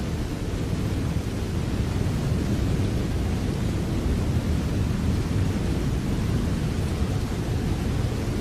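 Steady rain falling without a break, an even hiss over a deep, constant low rumble.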